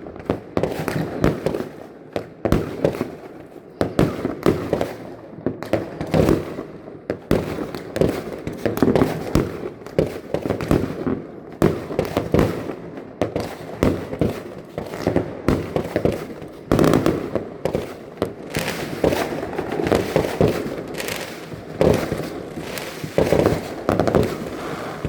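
Fireworks going off: a dense, unbroken run of overlapping bangs and crackles.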